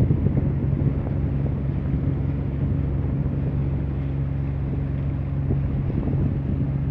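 Boat engine running at a steady, even drone, with a low hum that holds one pitch throughout.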